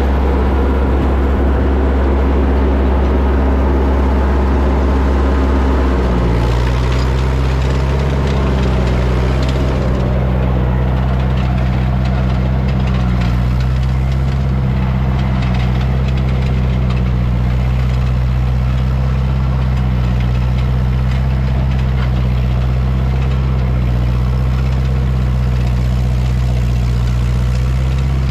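Ford 8N tractor's four-cylinder engine running steadily under load while pulling a Ferguson cultivator through the soil. The engine note changes about six seconds in, then holds steady.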